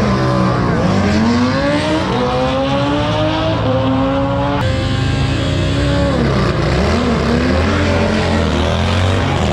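Drag-racing Harley-Davidson V-twin motorcycles accelerating hard down the strip at full throttle. The engine pitch climbs steeply, drops back at each gear shift and climbs again, several times over.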